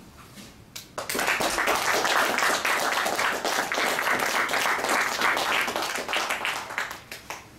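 Audience applauding: many hands clapping together, starting about a second in and fading out about six seconds later.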